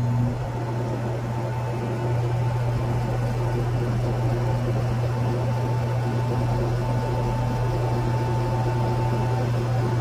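Carrier Comfort Series 3-ton heat pump (25SCA536) running with a steady low hum, a fainter higher tone and a rushing noise, getting slightly louder about two seconds in. This is the loud noise the owner finds abnormal in a brand-new unit.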